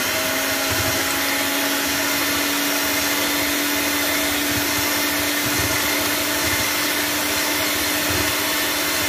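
Electric hand mixer running at a steady speed, its twin beaters whipping cream in a steel bowl: a steady motor whine over a constant whirring.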